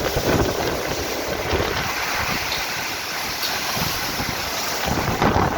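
Storm wind with heavy rain, the wind gusting and buffeting the microphone.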